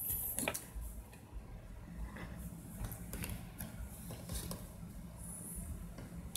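Faint room tone with a low hum and a few soft, scattered clicks.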